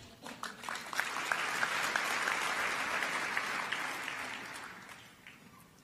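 A large seated audience applauding: the clapping builds up over about a second, holds, and dies away near the end.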